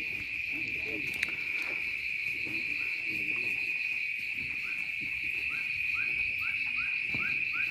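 Night insects keeping up a steady, high-pitched shrill buzz. In the second half a run of short rising chirps sounds over it.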